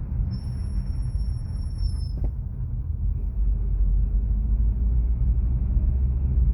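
HAVAL F7x brakes squealing: one steady high-pitched squeal lasting about two seconds that cuts off sharply, over the low rumble of the moving car. The squeal comes from a nearly new car with about 3000 km on it.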